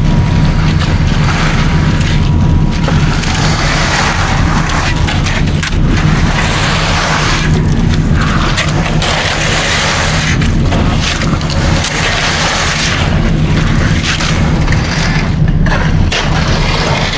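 Concrete mixer truck running with its drum turning while concrete is discharged down the chute: a steady low engine drone under repeated washes of scraping, sliding noise.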